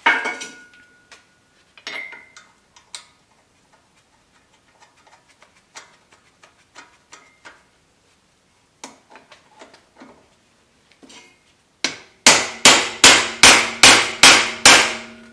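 Light metal clinks of a socket and nut being handled, then, from about twelve seconds in, a run of about ten sharp, ringing hammer blows, roughly three a second, on a steel socket seated over a nut on a hub stud. The blows drive the wheel hub assembly out of the steering knuckle of a Dana Super 60 front axle.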